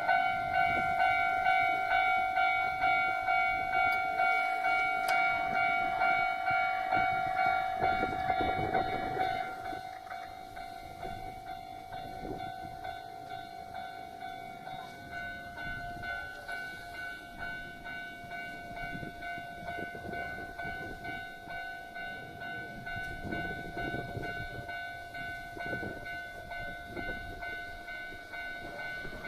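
Japanese railroad crossing warning bell ringing in a steady repeated ding-ding rhythm. It drops clearly in loudness about a third of the way through and keeps ringing more quietly.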